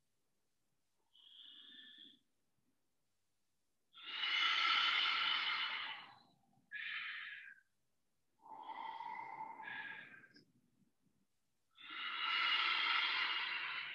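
Slow, audible Ujjayi breathing, air hissing through a narrowed throat. About five breaths come with silent gaps between, the loudest a long one about four seconds in and another near the end.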